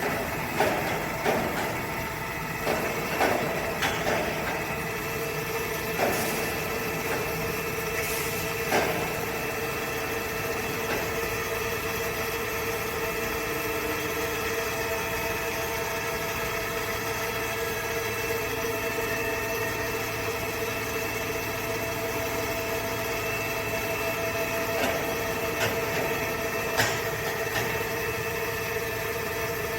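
CNC machine running while machining an electric motor housing: a steady mechanical hum with sustained tones, broken by sharp knocks several times in the first few seconds and a few more near the end.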